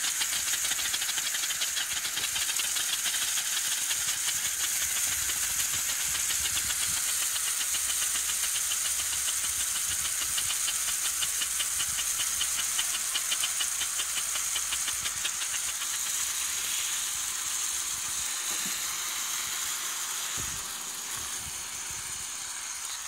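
Two handheld pyrotechnic flares burning with a steady, loud hiss and a fast rattling sputter, easing off slightly in the last few seconds.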